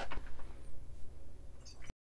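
Quiet room tone with a low, steady hum after the last spoken word. There is a faint tick just before the sound cuts off abruptly as the recording ends.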